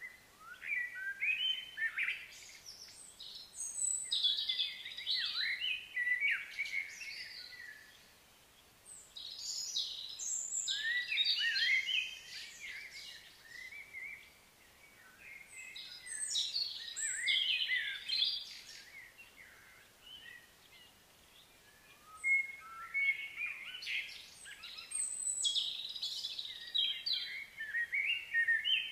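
Birds singing in bouts of rapid chirps and warbles a few seconds long, repeating about five times with short gaps between.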